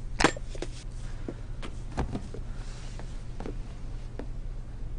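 Scattered light knocks and clicks as a hammer and a cardboard box are handled, about eight in all and loudest just after the start, over a low steady hum.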